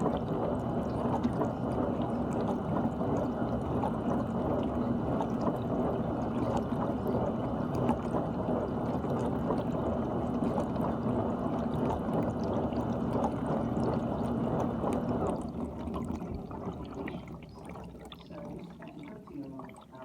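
GE dishwasher running its wash, water spraying and splashing inside the tub over a steady pump hum. About fifteen seconds in the pump stops and the sound dies away to faint trickling and dripping water.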